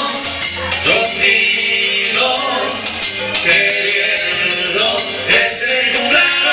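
Salsa music from a backing track played over a PA, with a shaker keeping a steady rhythm, and men singing along live into handheld microphones.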